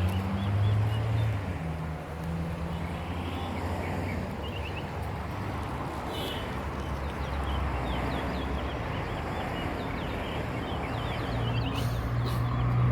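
Small birds chirping in repeated quick, high notes over a steady noisy background and a low hum.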